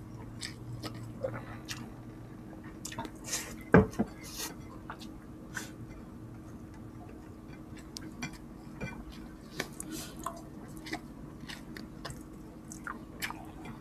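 Close-miked eating sounds: chewing and lip smacks, with scattered small clicks and taps of fingers and food on plates. One louder knock comes about four seconds in.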